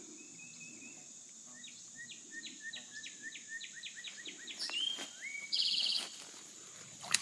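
A songbird singing a run of quick, repeated chirps, then a short buzzy trill, over a steady high drone of insects. A sharp click comes near the end.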